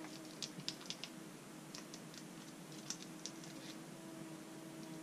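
Faint, scattered crackles and ticks of a paper label being peeled off a small plastic container, over a faint steady hum.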